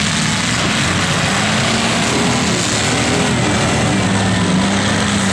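Several demolition derby cars' engines running and revving together in a dense, loud, steady din, their pitches wavering as the drivers work the throttles.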